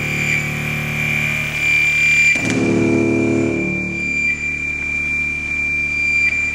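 Electronic sampled sound played through loudspeakers. A steady high tone holds throughout. About two and a half seconds in, a low pitched tone with a sharp start comes in and fades away over a couple of seconds.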